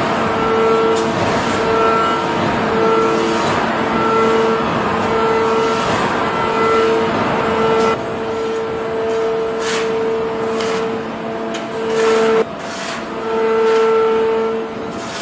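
Hydraulic forging press at work on hot steel: a steady machine hum with a whine that pulses about once a second as the press strokes, and a few sharp knocks in the second half.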